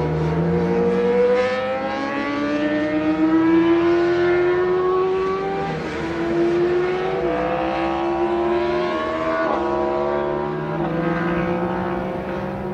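Car engine running hard on a race circuit. Its note climbs steadily for about six seconds, then dips briefly and climbs again a few times.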